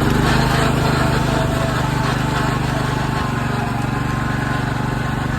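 The small engine of a home-built riding mower running steadily.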